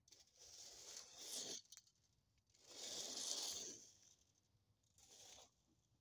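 A garden rake dragged through a pile of wood-chip mulch, three scraping, crunching strokes, the middle one the longest and loudest.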